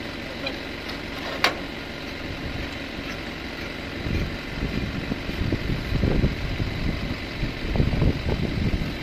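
Tractor engine idling steadily. A single sharp click about a second and a half in, and irregular low thumps from about four seconds on, over the idle.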